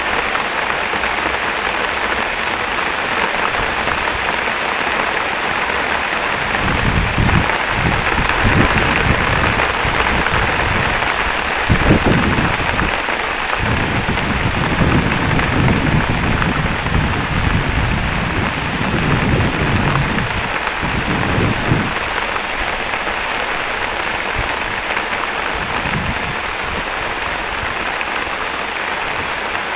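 Heavy rain pouring steadily. Rolling thunder rumbles low through the middle, loudest about twelve seconds in.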